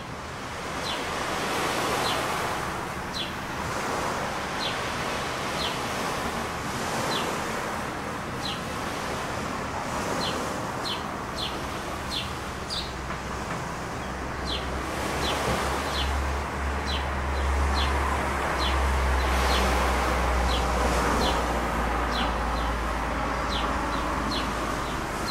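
Outdoor ambience: a bird gives short, high, downward chirps about once a second over a steady noisy wash that swells and eases. A low rumble comes in about halfway through and carries on.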